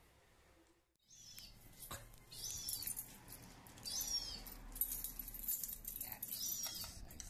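A gull calling just outside a street gate: repeated high, falling whistled calls, about one a second, over low street rumble, with a few sharp clicks. The first second is near silence.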